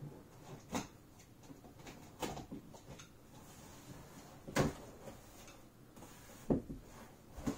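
A cardboard box being handled and opened: a handful of short knocks and rustles from its flaps and sides, the loudest about halfway through and again shortly after.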